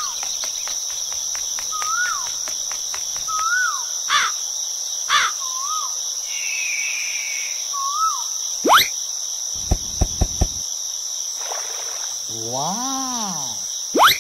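Crickets chirping steadily, with short rise-and-fall bird calls every second or two: a countryside ambience bed. A few sharp rising whistles cut through, the loudest about nine seconds in and at the very end, with four quick clicks about ten seconds in and a rising-and-falling tone near the end.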